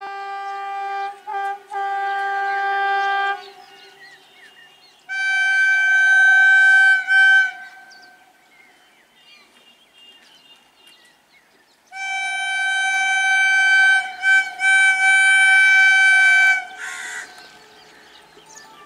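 WAG-9HC electric locomotive's horn sounding three long, steady blasts, each broken by a brief gap or two. The first is lower-pitched; the second, after a short pause, and the third, longest, come on a higher tone.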